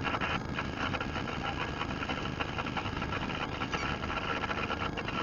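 Steady engine and vehicle noise heard inside the car's cabin through a dashcam microphone, with a fast, even buzzing rattle running through it.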